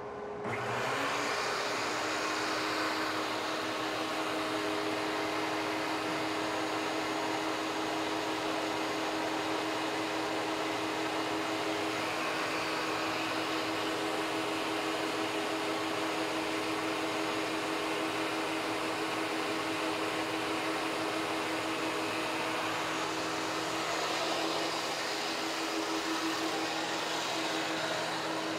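DeWalt DW735 thickness planer with a Byrd Shelix helical cutterhead and its chip-ejection impeller fitted, switched on and spinning up to speed within the first second, then running steadily with no board feeding through.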